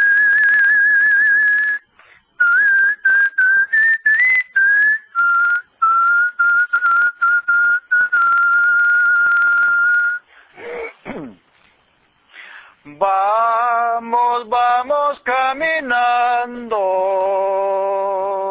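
A person whistling an icaro, a ceremonial healing-song melody, as a single wavering tone. After a short pause about ten seconds in, a man's voice takes up the melody, singing without words.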